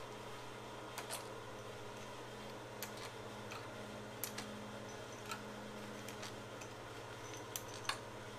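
Faint, scattered metallic clicks and light taps of hand tools working on a small engine's cylinder head bolts, a few each second or less, over a steady low hum.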